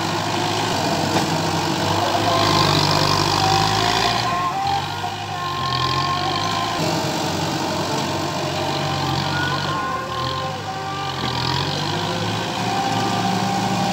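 Farm tractor engine working steadily under load as it drags a disc implement through loose soil, mixed with background music.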